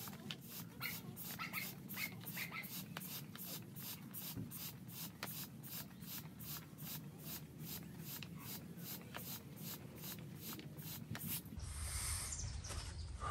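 Hand floor pump inflating a pool's air ring: a quick, even rhythm of air hisses, about three a second, that stops shortly before the end. A few faint high whines sound over the pumping in the first seconds.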